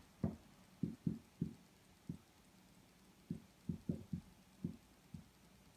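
Marker pen knocking against a whiteboard during handwriting: a run of short, dull thumps at irregular spacing, with a pause of about a second partway through.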